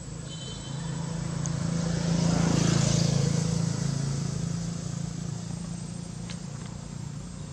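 A motor vehicle passing by: a low engine hum that grows louder over the first couple of seconds, peaks about three seconds in, then fades away.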